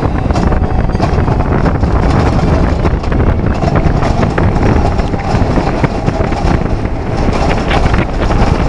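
Steel roller coaster train running at speed, with a steady rush of wind across the microphone over the low rumble and rattle of the cars on the track.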